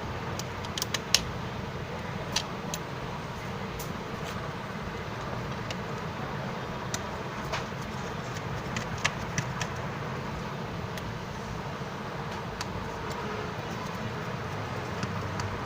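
Small metal clicks of a screwdriver working tiny phone screws out and setting them on a magnet, a few sharp ones about a second in and more around nine seconds, over a steady background hum.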